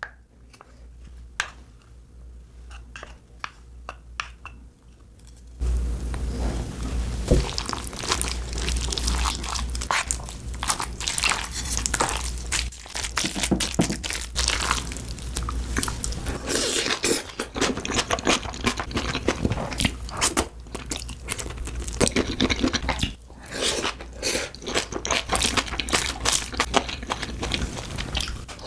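Close-miked eating sounds: crunchy biting and chewing with many sharp clicks and crackles, faint at first and much louder from about six seconds in.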